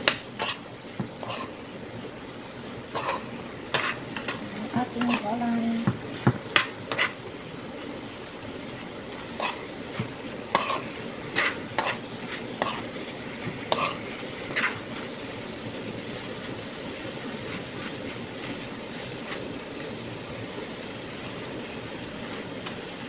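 Chicken and vegetables sizzling in a hot pan while a metal spatula stirs them, with sharp clacks of the spatula against the pan over roughly the first two-thirds. After that there is steady sizzling alone.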